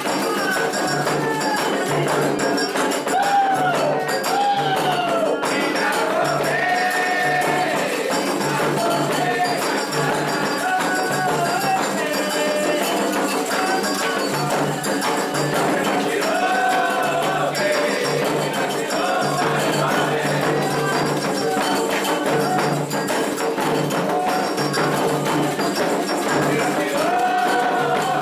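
Candomblé ritual music for Oxossi: hand drums play a steady rhythm under a sung chant, with a high metallic ringing above.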